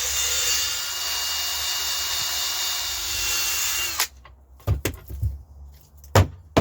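Drill-type power tool running steadily with a high whine while cleaning rust off an alternator pulley. It cuts off abruptly about four seconds in, followed by a few short knocks.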